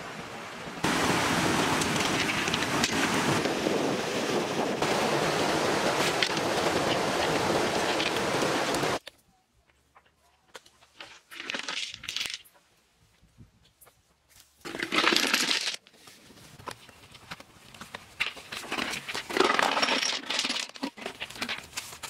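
Rushing river water, a loud steady rush that cuts off sharply about nine seconds in. It is followed by short, scattered bursts of scraping, rustling and light clicking as wet earth and stones are worked by hand.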